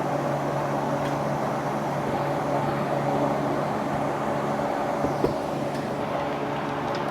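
Steady mechanical hum, even and unchanging, with one small click about five seconds in.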